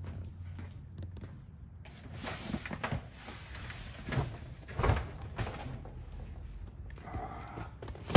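Rustling and handling noise from cardboard boxes of clothing being moved and rummaged through, with a couple of knocks about four and five seconds in.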